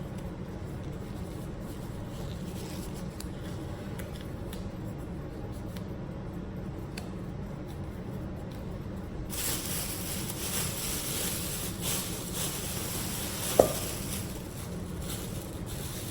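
Kitchen tap turned on about nine seconds in, water running steadily into the sink while raw fish is rinsed, over a low steady hum and a few light handling clicks. A single brief sharp clink cuts through the running water near the end.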